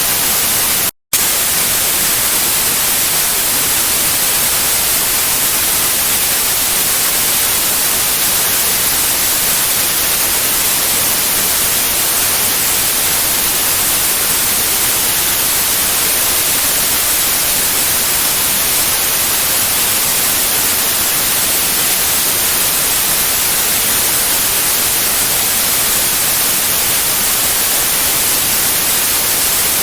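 Steady, hissy white noise, strongest in the high frequencies, with a very brief dropout to silence about a second in.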